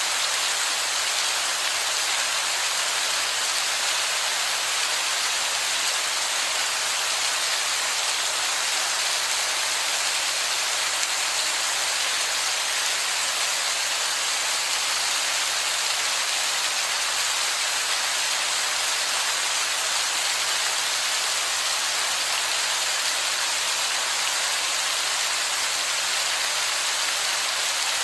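Heavy falling water splashing onto wet, mossy rock in a dense, even hiss that stays steady without a break.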